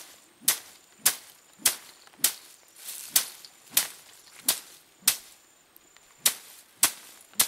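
Heap of dried stalks on a woven plastic tarp being beaten with a thin stick to thresh out the seed: sharp whipping cracks at a little under two a second, with a brief pause about five seconds in.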